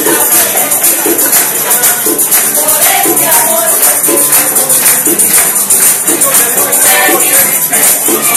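Live Puerto Rican Christmas parranda music: voices singing over a steady beat of shaken and struck hand percussion.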